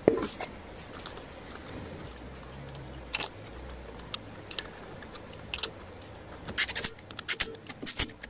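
Scattered light clicks and clinks of tools and wheel bolts being handled at a car wheel, with a quick cluster of sharper clicks about two-thirds of the way through.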